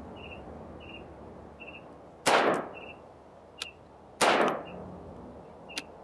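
Two gunshots from a 7.5-inch AR-15 pistol in 5.56, about two seconds apart, each ringing out in an echo for about half a second.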